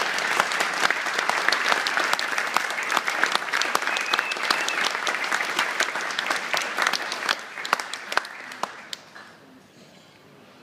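An audience applauding, which dies away about nine seconds in.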